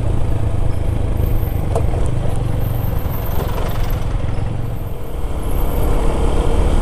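Motorcycle engine running while riding at low road speed, with wind rushing over the microphone.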